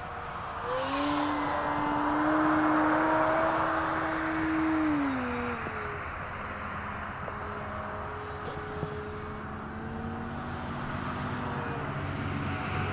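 Electric motor and propeller of a high-wing RC airplane in flight, a pitched whine with a rushing hiss. About a second in the whine rises and grows louder and holds steady. Around five seconds in it drops in pitch and runs on quieter.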